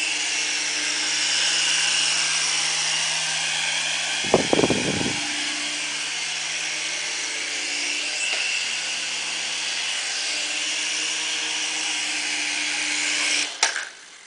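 Toy RC helicopter's small electric motors and coaxial rotors whirring steadily in flight, with a short thump about four seconds in. The motors cut off abruptly near the end as it sets down on the table.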